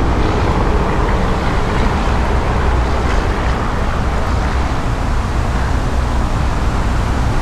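Steady wind buffeting the camera microphone: a constant low rumble with a hiss over it.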